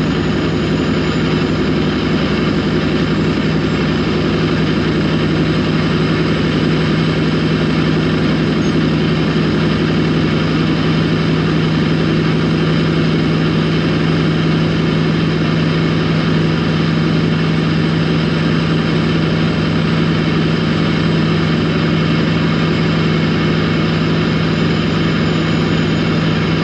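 Steady engine hum and road noise of a vehicle cruising at highway speed, heard from inside the cab, holding one constant pitch throughout.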